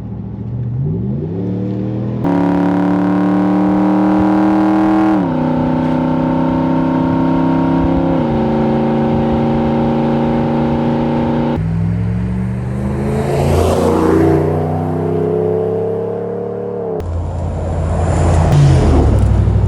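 Dodge Ram 1500's Hemi V8 breathing through an Aero Exhaust moderate-sound muffler while pulling hard under acceleration: the exhaust note climbs in pitch, then drops back at each upshift, several times over.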